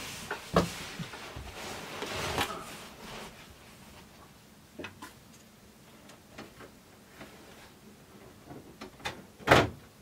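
Knocks, clicks and rustling as a person crawls under a bed and handles things at a fuse panel: rustling of clothes for the first couple of seconds with a sharp knock, scattered light clicks, then one louder knock near the end.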